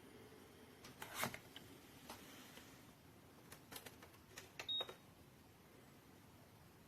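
Faint, scattered clicks of mechanical keyboard keys being pressed: a short cluster about a second in, then single presses and a few more clicks between about three and a half and five seconds in.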